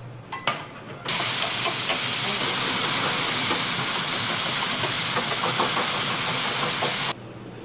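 A few clicks, then a loud steady hiss that starts abruptly about a second in and cuts off suddenly about six seconds later.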